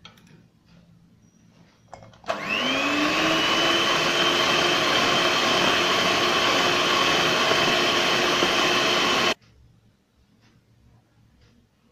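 Electric hand mixer beating a runny egg, sugar and oil mixture in a steel bowl. The motor spins up with a rising whine about two seconds in, runs at a steady speed for about seven seconds, then cuts off suddenly.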